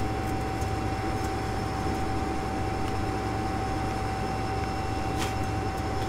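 John Deere Bullet Rotor combine running steadily: a low engine drone with a thin, steady whine over it. A faint click comes about five seconds in.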